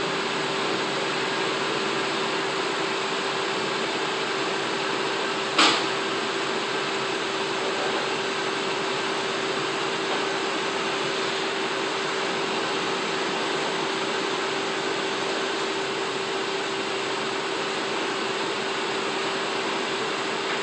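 Steady machine noise, an even hiss with a constant hum, and a single sharp click about five and a half seconds in.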